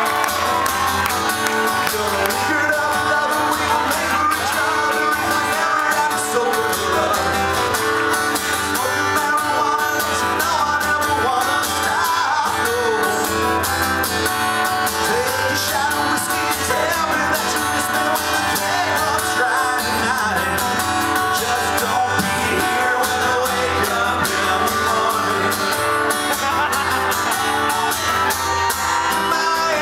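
Live acoustic guitar strummed as accompaniment to singing, a song played through microphones without a break.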